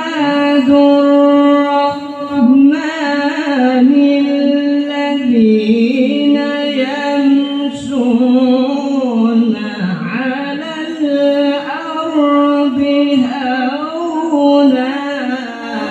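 A male qari reciting the Quran in the melodic tilawah style into a microphone: long drawn-out notes with wavering ornamental turns. The phrase tapers off near the end.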